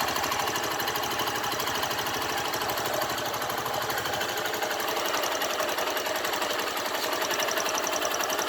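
Honda Fan 150's air-cooled single-cylinder engine running steadily with a fast, even mechanical clatter coming from the engine, the unexplained noise whose cause the owner is asking about.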